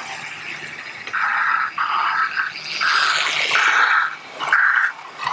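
Hornby TT:120 model train running round a tabletop track, a rough rasping run that comes in a string of short surges over a faint steady hum.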